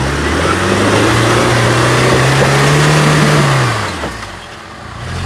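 4x4 engine revving under load, its pitch rising slowly for about three seconds, then falling away about four seconds in and picking up again near the end.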